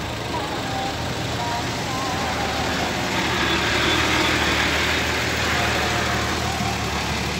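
Loaded Nissan diesel dump truck's engine running steadily as the truck moves slowly past at close range, with a louder rushing noise swelling about three to five seconds in.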